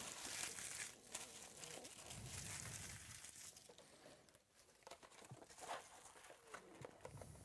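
Faint crinkling and tearing of trading-card pack wrappers, with small clicks as cards are handled.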